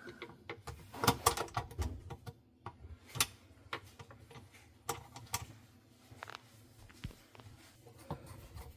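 Scattered light clicks and knocks as screws and parts are handled and screwed back into a dishwasher panel by hand, irregular with short gaps between.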